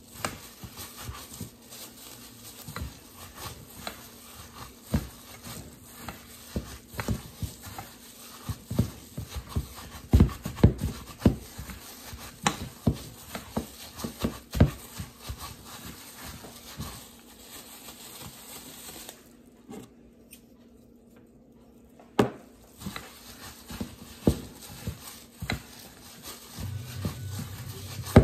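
A plastic-gloved hand squishing and kneading ground meat and grated carrot filling in a ceramic bowl, making irregular soft squelches and knocks against the bowl, with a short lull about two-thirds of the way through.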